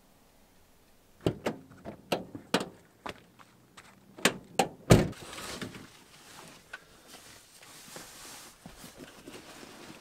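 A string of knocks and clunks as things are handled inside a campervan, the loudest a heavy thud about five seconds in, followed by a few seconds of soft rustling.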